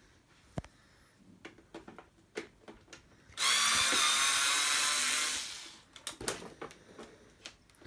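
Small cordless electric screwdriver running for about two seconds, a little over three seconds in, driving out a screw from a golf trolley's plastic handle. Light clicks and knocks of the parts being handled come before and after.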